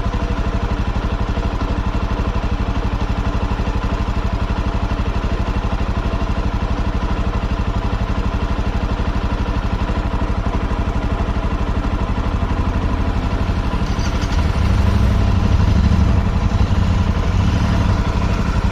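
Motorcycle engine running steadily at low revs, then pulling harder and louder from about three-quarters of the way in.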